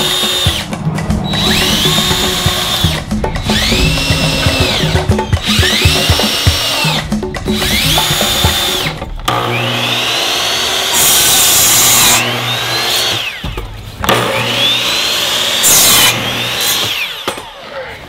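Power drill driving screws into wood in several short runs about two seconds apart, its motor whining up and down each time. A miter saw then spins up and cuts through a pine board twice. Background music plays throughout.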